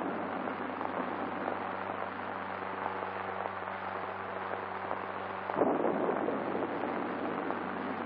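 Crackling hiss with a steady low hum, typical of an old optical film soundtrack with no speech on it. About two-thirds of the way through, the crackle grows louder and rougher and the hum fades under it.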